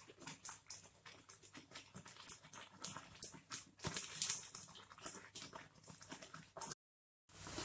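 Spatula stirring and scraping wet semolina (rava) upma in a pan as the hot water is worked in: soft, irregular scrapes and clicks. The sound cuts out for about half a second near the end.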